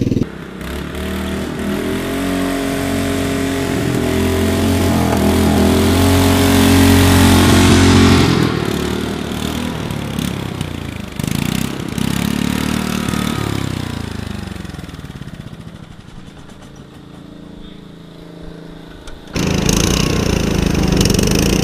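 Riding lawn mower engine running hard as the mower accelerates down a straight, growing louder over the first eight seconds, then falling in pitch and fading as it slows. Near the end it cuts abruptly to the engine running close by.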